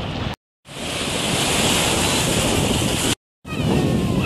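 Small waves washing in the shallows of a sandy beach, with wind buffeting the microphone. The sound cuts out completely twice for a moment.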